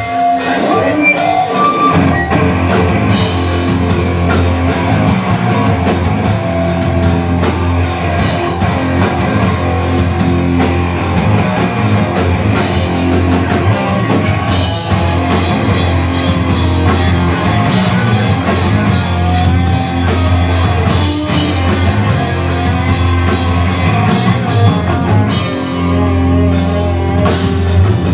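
Live rock band playing loud and continuously: electric guitars, bass guitar and drum kit, with the bass and full band coming in about two seconds in.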